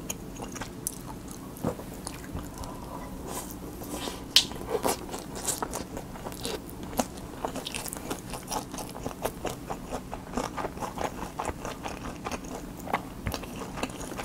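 Close-miked chewing of a mouthful of Spam kimchi fried rice with a fried quail egg: a steady run of small wet mouth clicks and smacks, with one sharper click about four seconds in.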